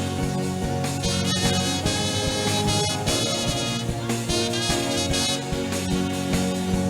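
Instrumental church band music with sustained horn-like notes over a steady beat.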